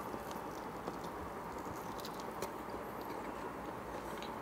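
A man chewing a mouthful of pizza close to the microphone: soft, irregular wet clicks and smacks over a steady background hiss.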